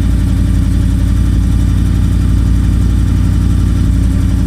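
Chevrolet K5 Blazer engine idling steadily, freshly fitted with a new fan, being warmed up before its timing is checked.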